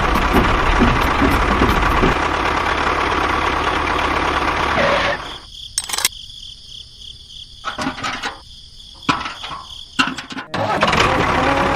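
Small electric motor of a DIY mini machine running with a loud, steady noise. About five seconds in it drops to a quieter thin whine with scattered clicks, then comes back loud near the end.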